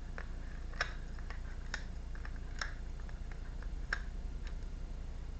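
Tarot cards being handled and laid down on a table: a series of light, irregular taps and clicks, over a steady low hum.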